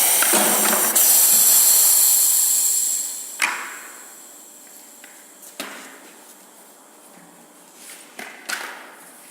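Cardboard corner-cutting machine running with a loud hiss that dies away about three seconds in. A few sharp clicks and knocks follow at intervals.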